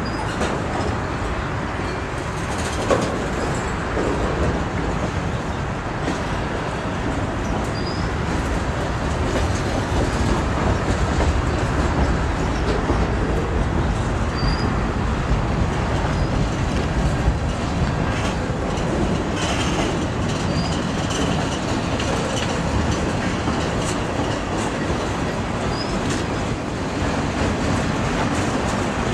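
Canadian Pacific freight train rolling past, a steady rumble of cars with wheels clicking over rail joints and brief faint high squeaks now and then.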